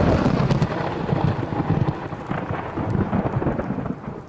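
Storm sound effect: heavy rain hissing with deep rolling thunder, easing slightly near the end.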